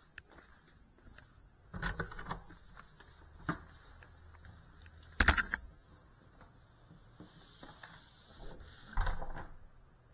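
A few separate knocks and clunks from the small drone and its camera being bumped and handled, picked up by the drone's onboard camera microphone. The loudest clunk comes about five seconds in and another near the end. A faint steady high-pitched electronic whine runs underneath; the motors are not running.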